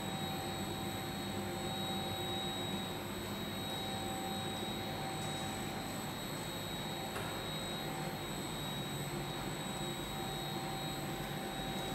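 Tablet and capsule inspection machine running with its dust extraction unit: a steady machine whir with a constant thin whine over it.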